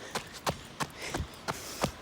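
Quick footsteps, about three a second, at a jogging pace.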